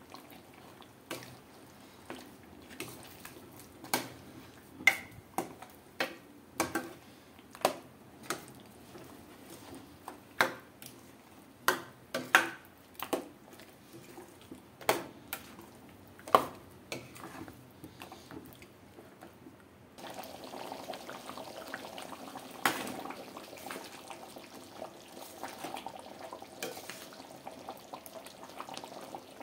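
A spoon knocking and scraping against a stainless-steel pot while chicken curry is stirred, with sharp, irregular knocks about once a second. About twenty seconds in, a steady hiss of liquid sets in and carries on under a few more knocks, as the thinned gravy cooks.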